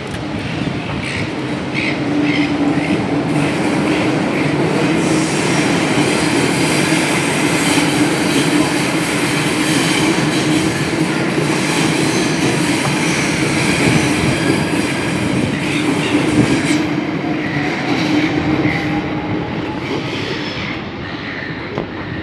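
Double-deck electric suburban train passing on the tracks: a loud, steady rumble of wheels on rail with a constant hum and high wheel squeal, easing off near the end.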